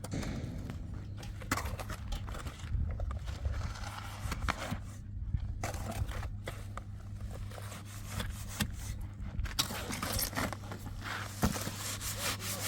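Irregular scraping and rubbing of hand work, with scattered sharp knocks, over a steady low hum.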